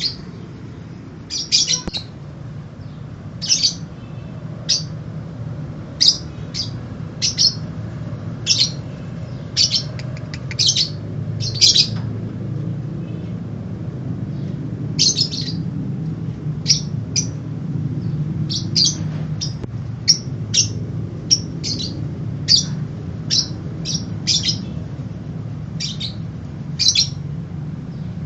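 A juvenile lovebird about two and a half months old, still learning its song, chirping in short, high chirps, one or two a second with brief pauses. A low steady hum runs underneath.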